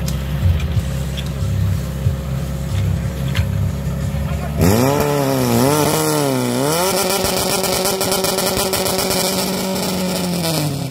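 Portable fire pump's engine idling, then revved up hard a little under halfway through, its pitch swinging up and down before holding steady at high revs as it pumps water out through the hose line, and dropping again just before the end.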